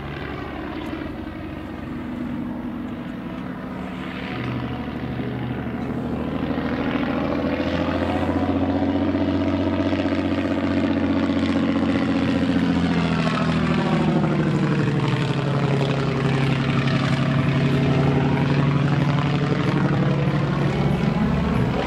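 Fokker D.VII biplane's piston engine and propeller droning in flight. It grows louder over the first several seconds as the plane closes in, then drops in pitch about two-thirds of the way through as it passes overhead.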